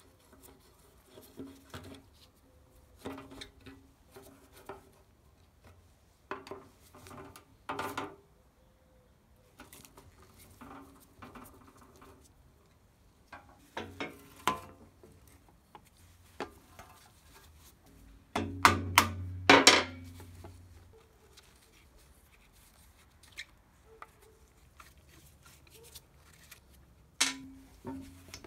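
Metal-tool clicks and scrapes as a screwdriver and punch work the screws out of a wooden handsaw handle, with a quick cluster of loud metal strikes about two-thirds of the way in, like a hammer knocking on the punch.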